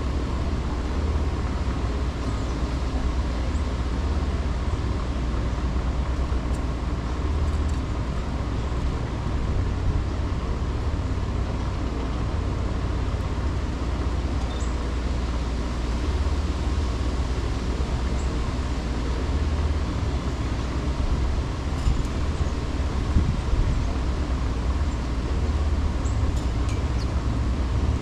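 Steady city ambience: a continuous low rumble of traffic and wind, with a few faint, brief high chirps scattered through it.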